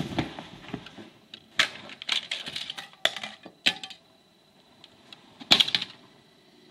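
Sharp plastic clicks and clatters in scattered groups, the loudest near the end, as a broken compact disc and its case are handled.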